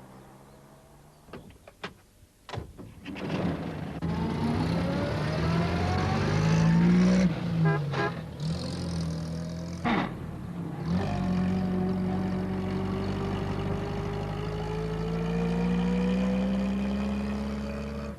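A few clicks, then a van engine running and revving up, its pitch rising as it accelerates, twice over, with another click partway through.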